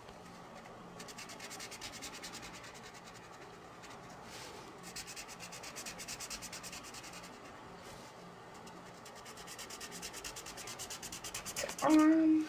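Felt-tip marker scribbling on colouring-book paper in quick back-and-forth strokes, with a couple of short pauses. A brief voice sound comes right near the end.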